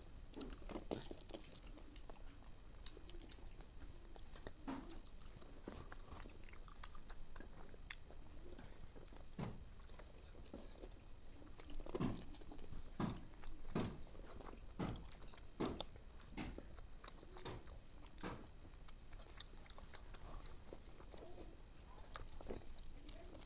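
Faint sounds of people eating rice by hand: chewing, with scattered soft clicks and taps, and a run of sharper ones about halfway through.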